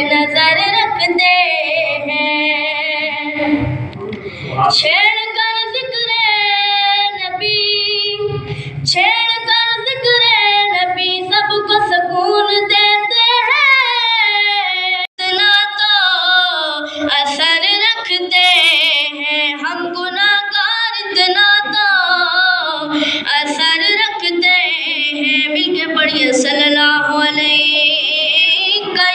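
A boy reciting an Urdu naat unaccompanied into a microphone, drawing out long, wavering, ornamented notes, with one very brief break about halfway.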